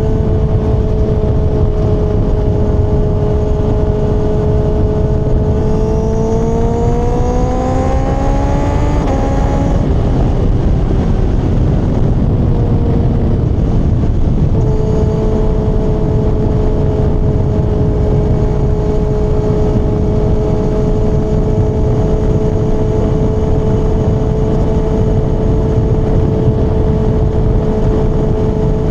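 Kawasaki ZX-6R inline-four engine cruising at steady revs under heavy wind rush. From about six to nine seconds in, its pitch rises as it accelerates, then it breaks off and falls back. About halfway through it settles into a steady cruise again.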